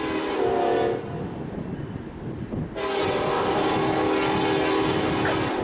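Locomotive air horn sounding a chord of several notes: a blast of about a second, then after a short pause a longer blast of nearly three seconds.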